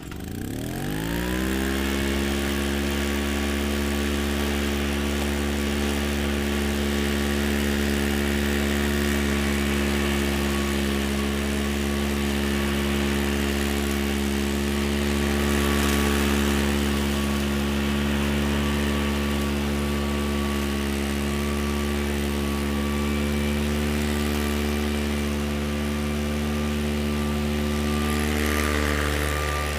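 Allen hover mower's small petrol engine pull-started, catching at once and revving up over about a second, then running at a steady speed while the mower is pushed over the grass, spinning 3D-printed plastic trimmer blades.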